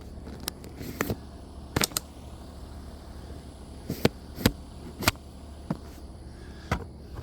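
Scattered heavy raindrops tapping sharply on a hard surface, about a dozen uneven taps, some in quick pairs, over a steady low rumble.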